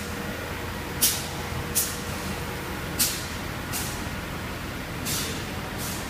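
Short sharp hisses, like air being let out, coming in pairs about every two seconds over the steady hum of a factory workshop.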